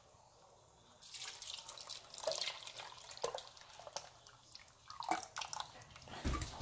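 Beef broth being poured into a soup pot of meat and vegetables, splashing and gurgling, starting about a second in.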